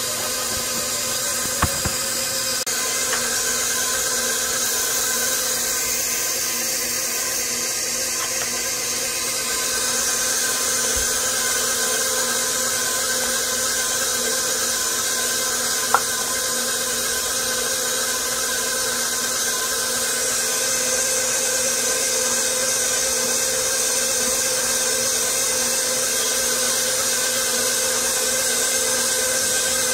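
A 6-quart, 575-watt stand mixer running steadily, its motor whining with several steady tones as the dough hook kneads bread dough. There is one sharp click about halfway through.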